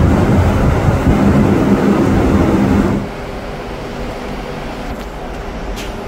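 Güntner refrigeration unit with its fan running: a loud, steady noise with a low hum. About three seconds in it cuts off abruptly to a quieter, steady machinery hum.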